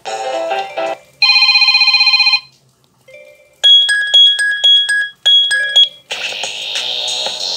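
Mobile phone ringtones and alert tones from a Kyocera DuraXE, played one after another. A short melody ends about a second in, then comes a steady warbling electronic ring lasting about a second. Next is a rapid repeating beep pattern in four groups, and a fuller ringtone tune starts near the end.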